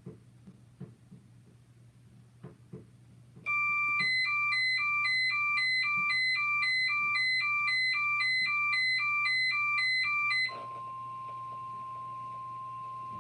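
Electronic emergency alert tones: a loud two-tone signal alternating high and low about twice a second starts a few seconds in. About ten seconds in it switches to a single steady alarm tone, the weather radio warning alarm tone.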